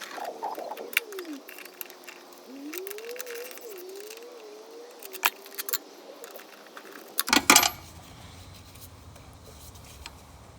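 Light metallic clicks and clinks of hand tools and bolts being worked on a lawn mower's pull-starter housing, with a louder cluster of knocks about seven seconds in.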